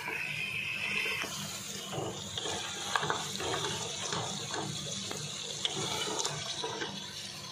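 Mutton and masala frying in oil in a metal pot, sizzling steadily, with a wooden spoon stirring and scraping through the meat. This is the bhuna stage, where the meat is browned in oil on a low flame.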